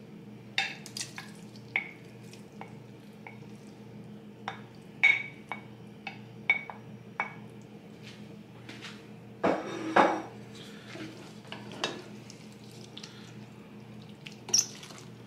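Wooden spoon scraping and knocking cooked shrimp off a ceramic plate into a glass bowl, then stirring them into a wet tomato mix: scattered clinks and knocks, some ringing briefly, the loudest about ten seconds in. A faint steady hum runs underneath.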